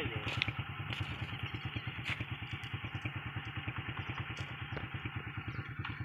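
A small engine idling steadily, with a fast, even thudding beat. A few light clicks sound over it.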